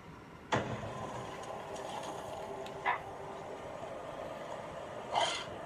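A click, then a film trailer's soundtrack playing at low level: a steady noisy ambience with a short sharp sound about three seconds in and a louder short one near the end.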